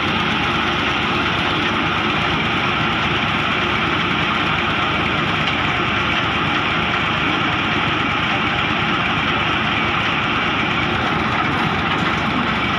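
Engine of a tubewell boring rig running steadily at a constant speed, a loud, even mechanical drone.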